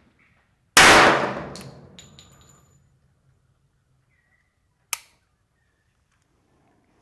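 A single semi-automatic pistol shot about a second in, with a long echoing tail. About four seconds later comes one short sharp click as the hammer falls on a round that does not fire: a light primer hit, which the shooter puts down to firing pin interference.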